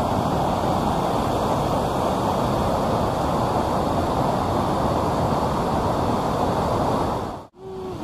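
White-water river rapids rushing over boulders: a loud, steady rush of water that cuts off suddenly near the end.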